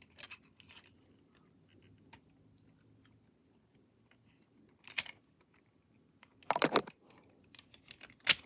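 Plastic joints and parts of a Transformers Grindor action figure clicking and clacking as it is handled and transformed: a few faint clicks, a sharper click about five seconds in, and a flurry of clicks near the end.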